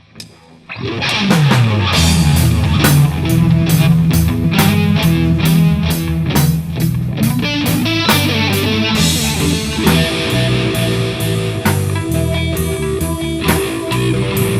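A rock trio of electric guitar, bass guitar and drum kit starts playing together about a second in and carries on with a loud instrumental jam, with steady drum hits under the guitar and bass.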